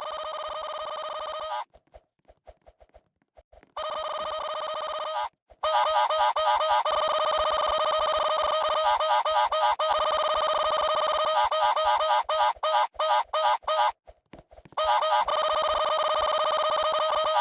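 Chicken sound effect: a loud, steady, nasal honking call that cuts in and out abruptly. It drops out twice, near the start and about three-quarters of the way through, and stutters rapidly just before the second gap.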